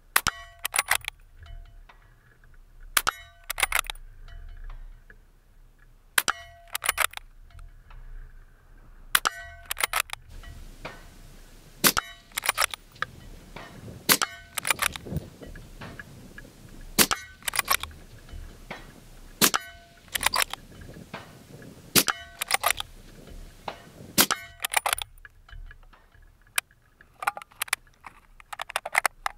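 Suppressed Accuracy International AX bolt-action rifle fired in rapid succession, about a dozen shots spaced roughly two to three seconds apart. Each shot is followed by clicks as the bolt is worked and the next round chambered.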